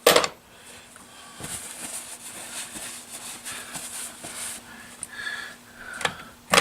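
Rummaging through tools for a large socket: a sharp metallic clack at the start, light rattling and rustling for a few seconds, and another clack at the end, over a faint steady hum.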